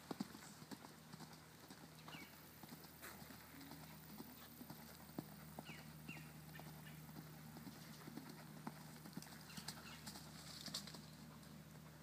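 Faint, irregular hoofbeats of a ridden pony cantering on soft arena sand, with a few short falling chirps.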